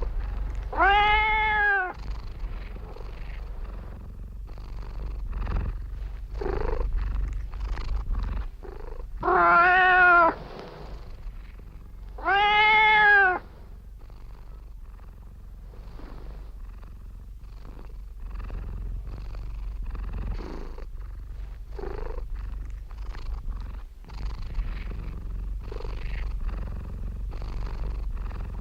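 Domestic cat purring steadily, with three drawn-out meows that rise and fall in pitch: one near the start and two close together about ten and thirteen seconds in.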